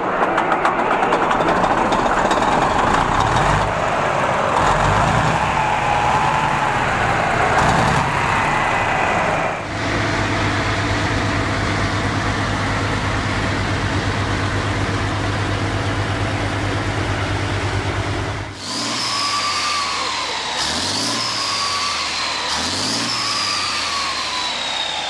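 Continental AVDS-1790 air-cooled turbocharged V12 diesel running in three short clips. First it runs with a wavering whine over the engine noise, then it idles steadily. Near the end it is revved up and back down three times, with a whine rising and falling with the revs.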